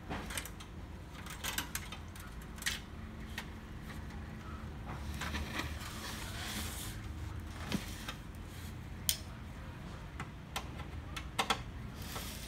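Plastic casing of an HP LaserJet M135a laser printer being handled: scattered clicks and knocks as its side cover is worked loose, with a scraping slide about midway as the printer is turned around, over a low steady hum.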